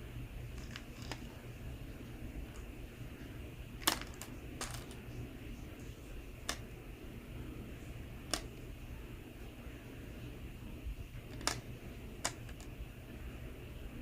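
Small hard plastic balls of a toy pool table game clicking as they are struck and knock together, about six sharp clicks at irregular intervals over a low steady hum.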